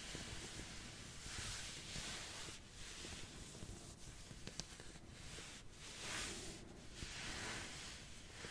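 Soft ASMR back-scratching sounds: slow, irregular scratching strokes on a surface, roughly one a second, with a few light clicks.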